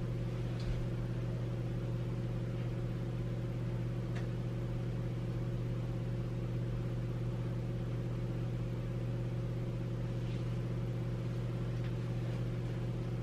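A steady low electrical hum that does not change, with a few faint ticks scattered through it.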